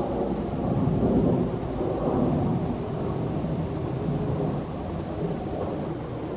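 Low, steady rumble of a Southwest Airlines Boeing 737 jet airliner's engines as it passes high overhead, swelling a little about a second in and easing off a bit toward the end.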